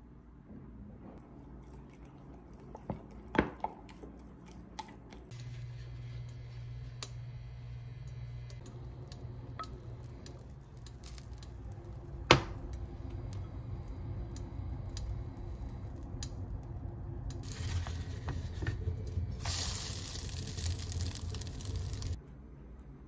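Oatmeal pancake batter being handled and the pancakes frying in a nonstick pan. First come a few knocks of a bottle and cap on the counter. A steady low hum sets in, a wooden spatula knocks once on the pan about twelve seconds in, and then a sizzling hiss swells and cuts off suddenly near the end.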